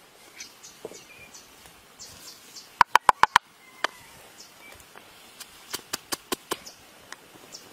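A pestle pounding red chillies, garlic and coarse salt in a mortar, making sharp knocks in quick runs: about five rapid strikes a little under three seconds in, a single one near four seconds, and about six more between five and a half and seven seconds. Faint bird chirps sound in the background.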